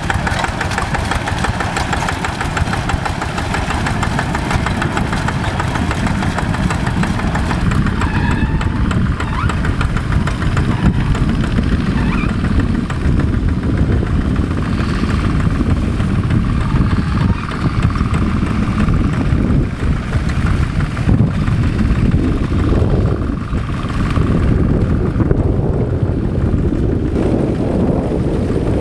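Diesel engine of a rice-paddy tractor running steadily, with a heavy low rumble.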